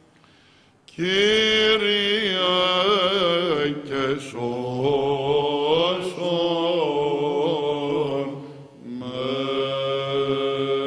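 Men's voices singing Greek Orthodox Byzantine chant unaccompanied. Long held notes carry rapid ornamental turns. The singing starts about a second in after a brief silence and breaks for a breath near the end.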